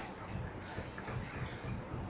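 Faint room noise with two brief high-pitched squeaks, one after the other, the second slightly higher and ending just over a second in.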